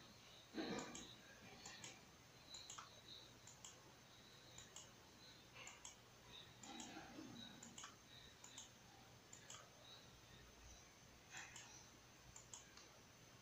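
Faint computer-mouse button clicks, irregular and a few a second, as keys on an on-screen keyboard are clicked one by one. A soft low thump comes about a second in.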